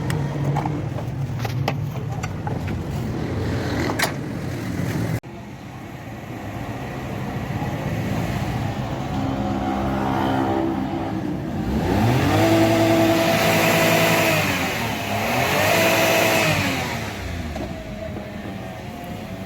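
Toyota Vitz petrol engine idling, then revved twice: each time the pitch climbs, holds for a moment and falls back to idle.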